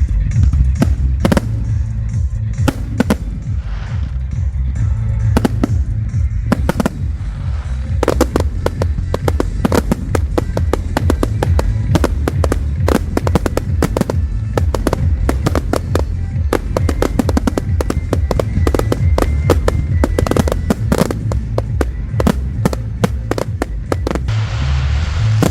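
Fireworks display: rapid cracks and bangs of bursting shells, sparse at first and then dense and continuous from about eight seconds in, over loud music with heavy bass.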